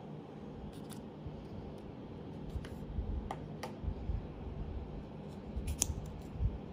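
Light clicks and taps of hands handling the AirPods Pro box's paper packaging: the small ear-tip holder lifted out and turned over in the fingers, a few scattered clicks with a sharper one near the end.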